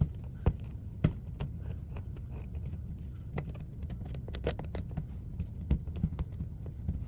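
Steel dental pick picking and scraping at hardened, dried-out brown circuit glue on a circuit board, making irregular sharp clicks and small scratches over a low steady hum.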